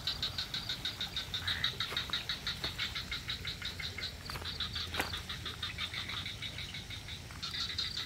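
Night chorus of frogs calling in rapid pulsed trains, several voices overlapping and answering one another. A single sharp click comes about five seconds in.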